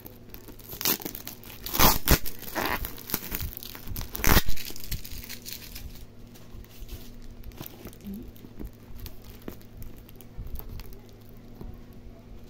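Plastic parcel wrapping crinkling and tearing as it is handled and pulled open by hand, with a few loud rips in the first five seconds and quieter crinkling after.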